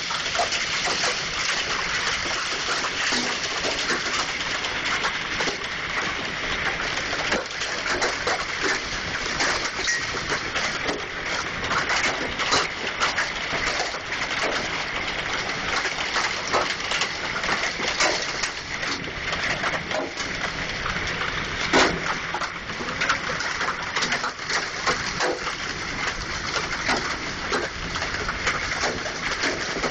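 Heavy hailstorm with golf-ball-sized hailstones and rain: a steady hiss of hail and water hitting surfaces, broken by many sharp clicks and knocks of single stones striking. The loudest knock comes about two-thirds of the way through.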